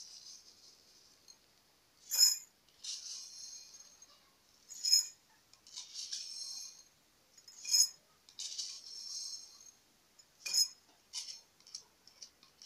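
Spoonfuls of fenugreek seeds tipped into a glass jar, four times: each time a sharp clink of the spoon on the glass, then the seeds rattle onto the glass for about a second. A few lighter clinks follow near the end.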